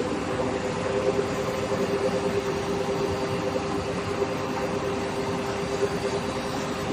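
Steady running noise of a copper rod continuous casting and rolling line at work: a constant two-tone machine hum over a broad even rush.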